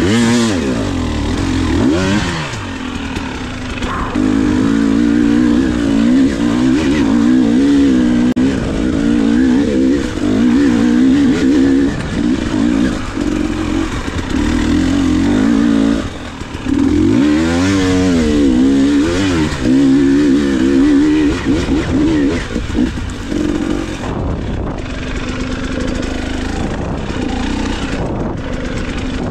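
KTM 300 XC two-stroke dirt bike engine being ridden, revving up and down with the throttle so its pitch keeps rising and falling. It eases off briefly about two seconds in and again around sixteen seconds, and runs steadier at a lower pitch near the end.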